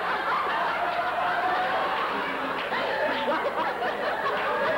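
A group of people laughing at once, a steady mix of chuckles and giggles from several voices.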